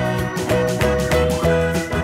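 Upbeat instrumental background music with a steady beat.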